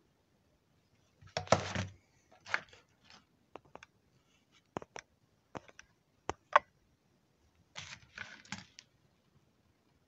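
Irregular clicks, taps and short scraping rustles from a power-supply circuit board and tools being handled on a workbench. Louder rustling comes about a second and a half in and again near the end.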